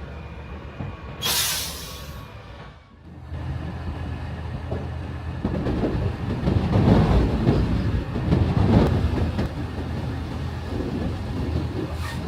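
Heavy harvesting machinery running: a steady low engine drone with rough clattering that swells in the middle. A short hiss comes about a second in, and the sound drops away briefly near three seconds before the machine noise returns.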